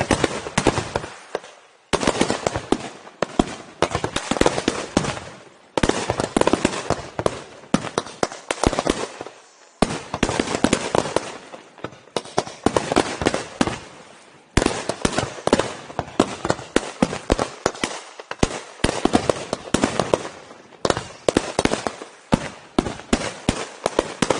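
Aerial fireworks display: volley after volley of shells bursting in dense runs of sharp bangs and crackling reports. The bursts come in waves that each start with a sudden loud bang and die away over a couple of seconds before the next wave begins.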